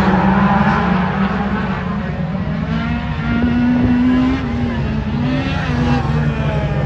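A pack of National Hot Rod race cars lapping an oval, several engines running hard together, their pitches rising and falling.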